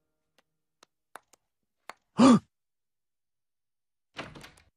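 A brief vocal sound halfway through, one short breath-like utterance that rises and falls in pitch, then a door knocking shut near the end; a few faint ticks come before.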